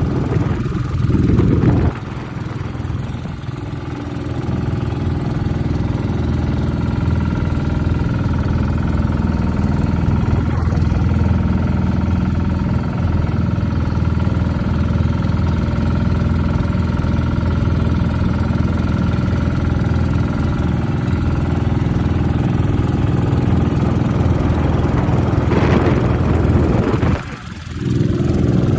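Engine of a motorized outrigger boat (bangka) running steadily under way, a constant low drone. It dips briefly near the end.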